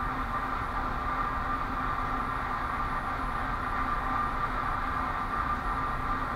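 Steady mechanical hum from a running machine, with fixed steady tones and a low rumble underneath.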